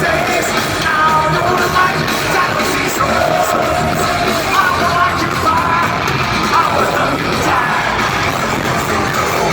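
Heavy metal music played loud, with shouted singing over the band.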